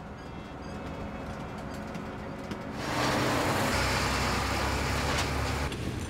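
Military truck's engine and road noise, growing much louder about three seconds in to a loud, deep rumble with a hiss over it, then easing off near the end.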